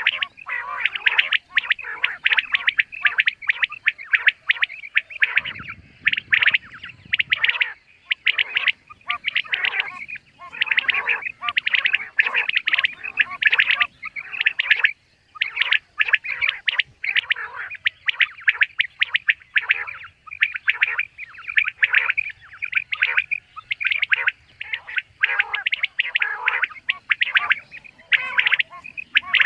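Common quail calling over and over, short sharp notes following one another in quick succession with hardly a pause.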